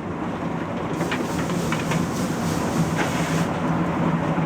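Steady running noise from a steam locomotive: a continuous rumble with a low hum, broken by a few sharp knocks.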